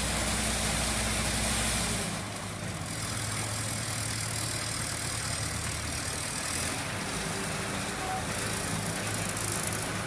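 Diesel engine of an asphalt paver running steadily while it lays asphalt; its deep drone drops a little about two seconds in.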